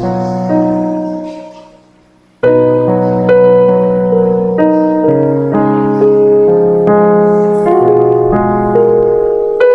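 Background piano music: one piece fades out about two seconds in, and a new piece of sustained piano chords starts abruptly.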